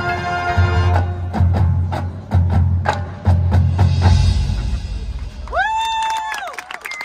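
Marching band: a held brass chord cuts off about a second in, followed by a run of low drum hits from the percussion section and a rumble. Near the end a pitched tone slides up, holds, then slides back down.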